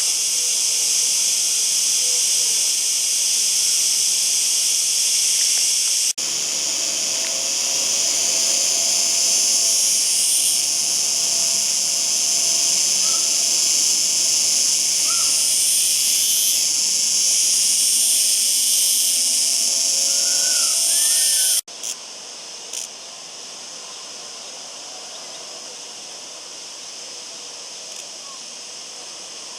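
Male cicada singing: a continuous, loud, high-pitched buzz. It breaks off abruptly about 6 seconds in and again about 22 seconds in, and after the second break it goes on much fainter.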